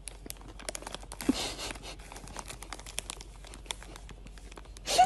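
Plastic snack bag crinkling and rustling with many small clicks as a cat rummages inside it with its head in the bag; the rustling swells about a second in.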